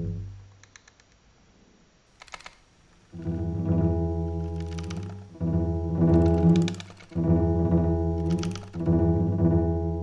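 Low, sustained pitched tones with many overtones from a granular pitch-shift effect, coming in four swells after a near-silent pause. A short sharp click about two seconds in.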